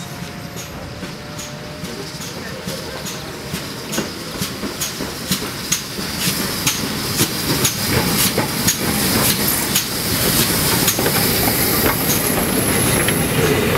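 Steam-hauled passenger train running into the station: a regular clickety-clack of wheels over rail joints, about two clicks a second, growing louder as the tank locomotive and carriages draw alongside.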